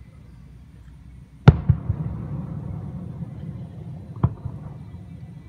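Fireworks display shells bursting: a loud bang about one and a half seconds in, followed by a few smaller pops and a low rumble, then a second, smaller bang about four seconds in.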